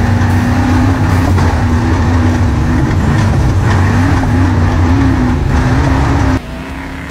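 Off-road race truck's engine heard from inside the cab, running hard under load with its pitch rising and falling as the throttle is worked, over heavy chassis and road noise. Shortly before the end the sound cuts suddenly to a much quieter, more distant vehicle sound.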